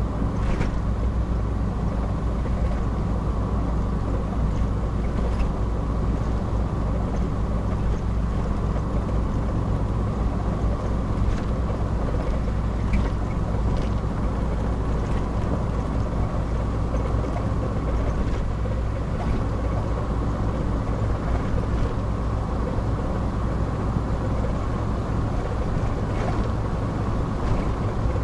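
Car cruising at a steady speed, its engine and road noise making an even low rumble inside the cabin.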